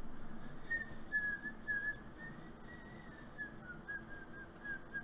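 A person whistling a tune softly: a string of short notes that step up and down in pitch.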